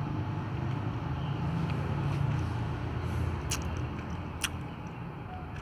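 Low steady rumble of background noise that swells about two seconds in, with a few sharp clicks from cats eating out of plastic food containers.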